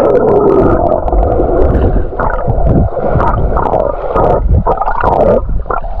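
Underwater sound picked up by a camera held beneath the water as a man swims: a loud, muffled rushing and gurgling of water and bubbles, with many short clicks.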